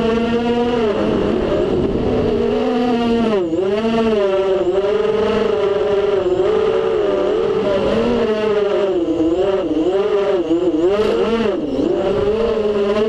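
FPV quadcopter's brushless motors and propellers whining, the pitch sliding down and back up with throttle changes: a drop about a second in, quick dips around three and a half and four and a half seconds, and a run of dips between eight and twelve seconds.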